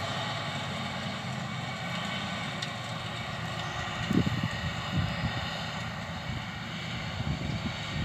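John Deere 2058 combine harvester running steadily at a distance, a continuous diesel engine and machinery hum. Irregular low rumbles come in from about four seconds in.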